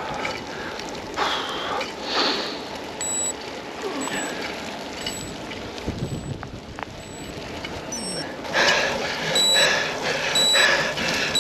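Wind, rain and road noise on the microphone of a bicycle ridden hard in the rain, with heavy breathing swelling louder near the end. Short high beeps repeat about once a second from about three seconds in, likely the bike computer's interval alert.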